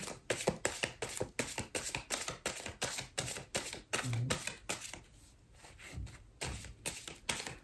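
A deck of oracle cards shuffled by hand: quick, irregular clicks and flutters of card against card.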